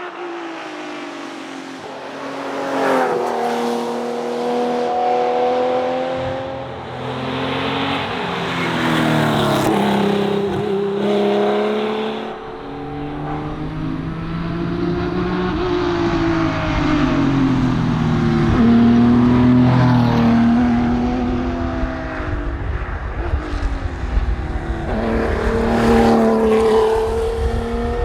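Porsche 911 RSR flat-six engine under hard driving, its pitch climbing under acceleration and dropping off several times as it works through the gears and lifts off.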